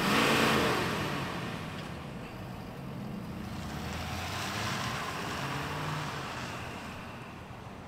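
2023 Ford F-350 Super Duty's 6.7-litre Power Stroke turbo-diesel V8 pulling away and driving off, its engine note rising and falling as it goes and fading toward the end.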